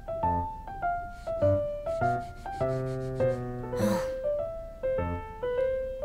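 Background music: a gentle piano melody of single struck notes, each fading after it is played. A brief rustle sounds about four seconds in.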